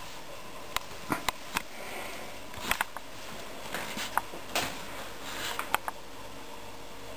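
Handling and movement noise while filming: irregular light clicks and knocks, about ten in all, some close together, with soft rustling and breath-like sounds between them.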